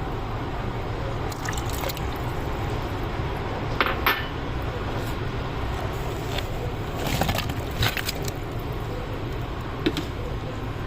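Kitchen work sounds: a few short clinks and knocks of utensils and ingredients, with some liquid sounds, over a steady low hum.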